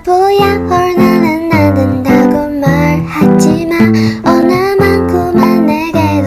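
Background music: strummed acoustic guitar chords with a gliding melody line over them, with a steady beat.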